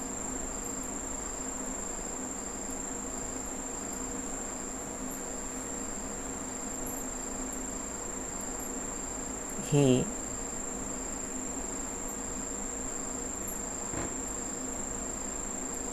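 A steady high-pitched whine over a faint low hum and hiss, with no change throughout.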